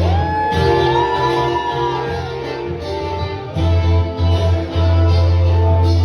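Instrumental stretch of a reggae song: a heavy bass line with plucked guitar, and a long tone that slides up and holds during the first two seconds.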